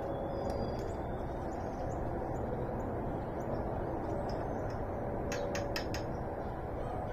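Outdoor morning ambience: a steady, even background rush with scattered faint bird chirps. About five seconds in come four quick, sharp chirps or clicks in a row.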